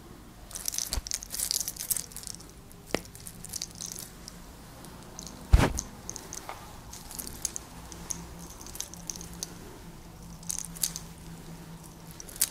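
Hair being twisted and tugged lock by lock in hair cracking, giving close, scattered dry crackles and snaps in clusters. One loud thump comes about five and a half seconds in.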